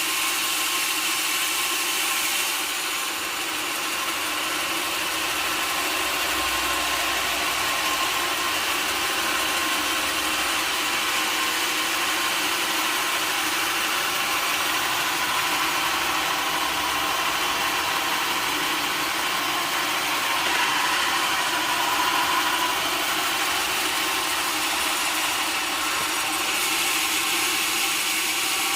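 Sawmill machinery running steadily: a continuous mechanical noise with a faint hum in it, growing a little louder about two-thirds of the way through.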